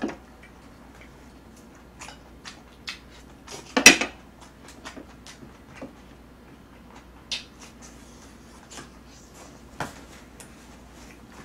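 Utensils clinking and tapping against dishes in short, scattered clicks, with one louder clatter about four seconds in.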